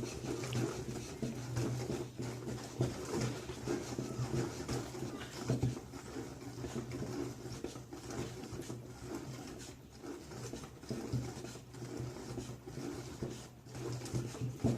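Sponge cake batter being mixed in a bowl: soft, irregular scraping and tapping of the mixing utensil against the bowl, over a steady low hum.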